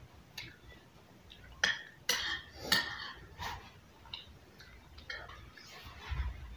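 Metal spoon and fork clinking and scraping against a ceramic plate as food is scooped up. There is a run of sharp clinks, loudest about two to three seconds in, then lighter taps.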